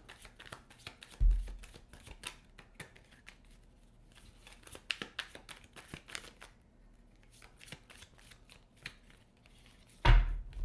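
Tarot cards being shuffled by hand: a quick, uneven run of soft papery clicks, with a thump about a second in and a louder knock near the end.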